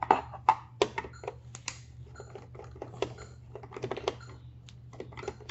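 Irregular light clicks and taps of a screwdriver and fingers on the plastic case of a medCaptain syringe pump as its screws are taken out.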